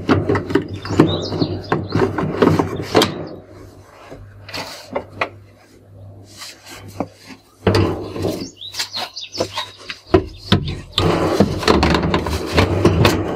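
Plastic detergent drawer and panels of a Whirlpool front-loading washing machine being handled: the drawer scraping as it slides out and in, with rubbing and clattering. There are two busy spells with a quieter stretch between them.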